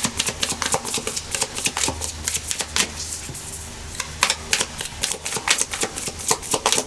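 A deck of tarot cards being shuffled by hand: a quick, irregular run of crisp card snaps and flicks that eases off briefly a little past the middle, then picks up again.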